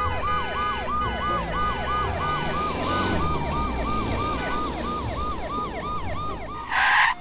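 Electronic emergency siren for the toy repair van, wailing in a fast, even cycle of pitch dips and rises about three times a second, over a low rumble. A short, loud burst of noise cuts in near the end.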